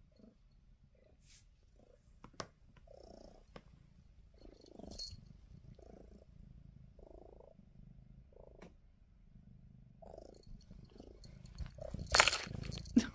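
Domestic cat purring in slow, even cycles, with a few soft clicks. Near the end, a loud burst of rustling close to the microphone as the cat moves past.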